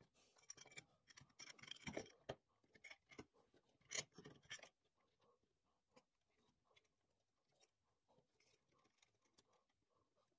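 Small metal hardware being handled on a work mat: bolts pushed through an aluminium plate and set down, giving a busy run of light clicks and rattles for the first few seconds, then only faint scattered clicks.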